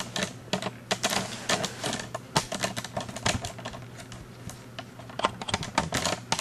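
Handling noise close to the microphone: a rapid, irregular run of clicks and rustles as an action figure and the cloth under it are handled, over a steady low hum.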